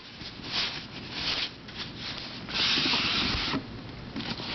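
Rubbing and scraping handling noise: a few short scrapes, then a longer rub lasting about a second, about two and a half seconds in.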